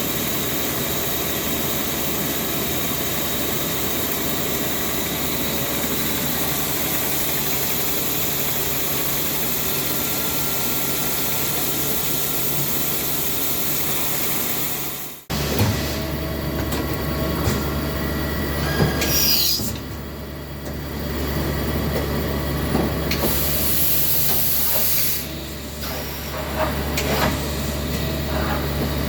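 Okuma Macturn 30 CNC lathe running: a steady mechanical hum with several steady tones. The sound cuts off abruptly about halfway through and comes back with a deeper hum, and a loud burst of high hiss lasts about two seconds in the second half.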